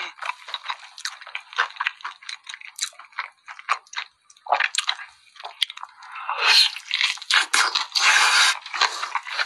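Close-miked eating of sauce-glazed fried chicken coated in melted cheese: wet, sticky squishing and smacking, then from about six seconds in louder, denser crunching as it is bitten and chewed.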